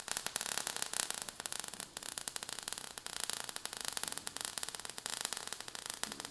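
Steady crackling hiss, like static, with dense, irregular clicks throughout.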